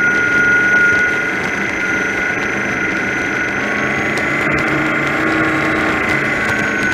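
Offshore powerboat running at speed: a steady engine drone with a high whine over it that shifts in pitch around the middle, mixed with rushing water and spray from the wake.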